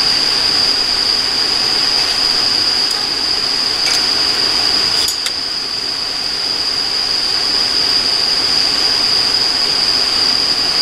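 Steady high-pitched chorus of crickets over a continuous rushing hiss as air is blown through a fire-blowing pipe into the fire. The rushing eases briefly about five seconds in.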